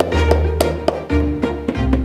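Background music with bowed strings over a steady low note, with short sharp taps every few tenths of a second.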